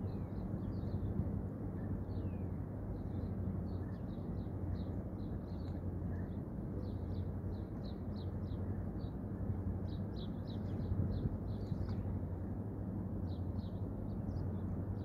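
Small birds chirping in quick short calls, scattered throughout and busiest in the second half, over a steady low rumble with a faint even hum in it.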